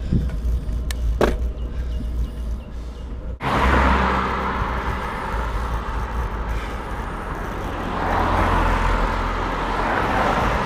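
Road traffic: motor vehicles passing, a steady rush of tyre and engine noise. It jumps suddenly louder about three and a half seconds in and swells again near the end.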